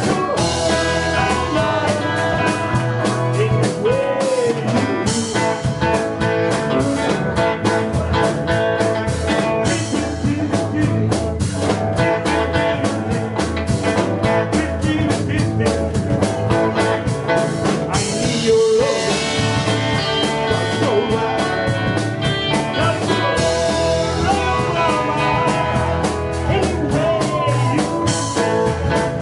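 Live rock and roll band playing: electric guitars over electric bass and a drum kit, with a steady beat.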